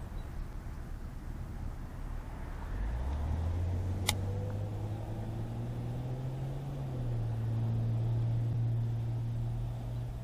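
A vehicle engine droning low, rising in pitch about three seconds in and then holding steady, over a low rumble. A single sharp click about four seconds in.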